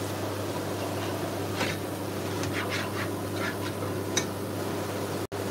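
Slotted spoon stirring soup in a cooking pot: a handful of short scrapes and clicks of the spoon against the pot between about a second and a half and four seconds in, over a steady low hum.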